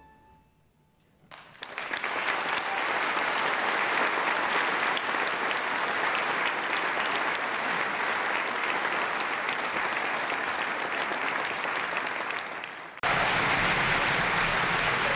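Large theatre audience applauding, starting about a second in after a brief hush at the end of the music and going on steadily. Near the end the applause jumps abruptly to a fuller, louder sound.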